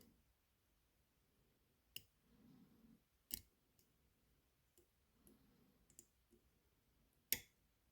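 Faint metallic clicks of a lock pick and tensioner working the pins of a small dimple camlock: three sharper clicks at about two, three and a half and seven and a half seconds in, with fainter ticks and soft handling rustle between.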